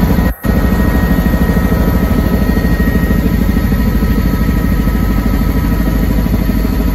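Helicopter in flight heard from inside the cabin: a loud, steady drone with a fast rotor beat and a thin, high turbine whine. It briefly cuts out about half a second in.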